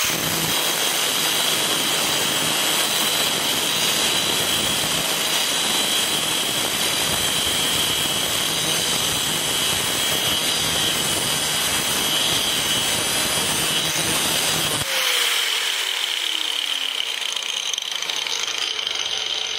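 A 4½-inch angle grinder with a thin cutoff wheel slices steadily through steel angle iron, making a loud grinding whine with high ringing tones. About fifteen seconds in it is switched off, and the motor winds down in a falling whine.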